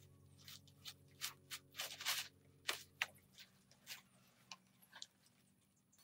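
Dry palm-leaf thatch crackling and rustling in short, irregular snaps as it is handled and laid on a roof, with a denser rustle about two seconds in.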